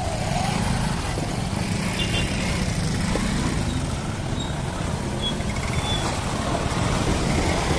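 Street traffic close by: motor vehicle engines running and passing, a steady low rumble.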